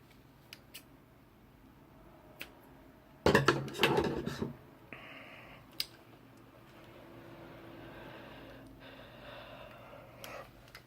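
Scissors snipping and being handled while trimming Cat5 cable: a few light clicks, then a louder burst of clicking and clattering snips about three seconds in.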